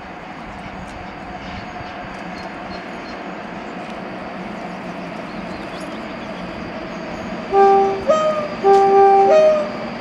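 Train running noise slowly growing louder, then about seven and a half seconds in a locomotive horn (Class 57 No. 57005) sounds four short loud blasts, alternating a low note and a higher, briefly sliding note twice over about two seconds.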